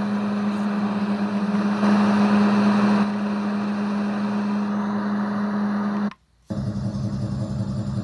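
Housbay white noise machine playing a steady recorded noise track through its small speaker, a hiss over a low hum, louder for about a second near two seconds in. About six seconds in it cuts out for a moment and switches to a different track with a low pulsing hum.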